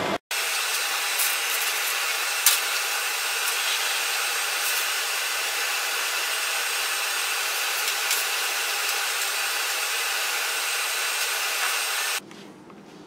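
A steady, even hiss of a blower running, with a few faint clicks, cutting off abruptly near the end.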